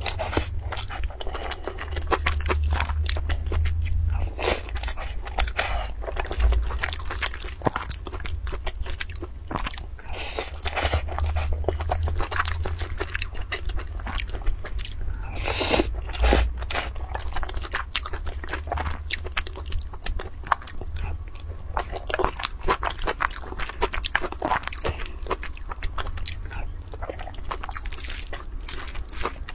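Close-miked chewing of mouthfuls of egg fried rice, a continuous run of wet mouth clicks and smacks, over a steady low rumble.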